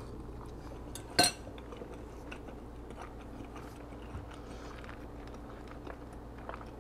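A metal fork clinks sharply once against a ceramic bowl about a second in, followed by faint chewing and small ticks of eating.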